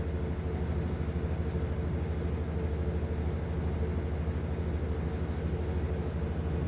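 An engine running steadily: a low, even hum with a fast, fine flutter and no change in speed.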